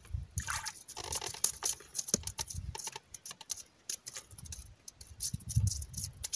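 A hooked kundzha (white-spotted char) splashing and thrashing as it is landed through the ice hole: a busy run of splashes, sharp taps and rustles, with low thumps that are loudest near the end.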